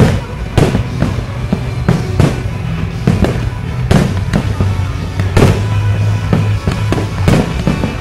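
Aerial firework shells bursting one after another, more than a dozen bangs at uneven intervals, with music playing underneath.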